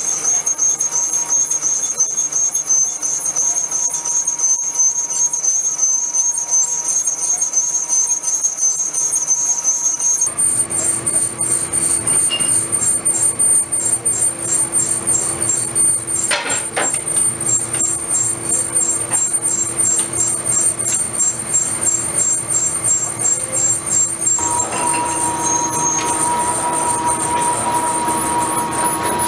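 Metal lathe cutting a steel flange, the tool giving a steady high-pitched squeal. About ten seconds in this gives way to workshop machinery running, a drill press among it, with a fast even ticking and a low steady hum; a second steady tone joins near the end.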